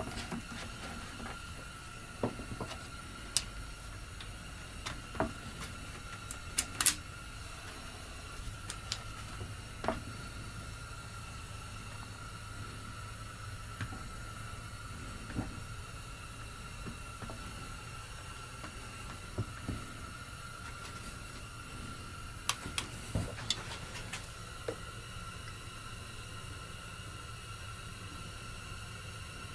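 Scattered light clicks and knocks of hands and tools working on a chainsaw's fuel system, over a faint steady hum.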